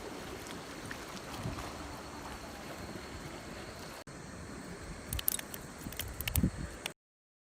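Outdoor ambience at a fishing harbour: wind on the microphone and water lapping against the harbour. A few sharp clicks and knocks come near the end, then the sound cuts off suddenly.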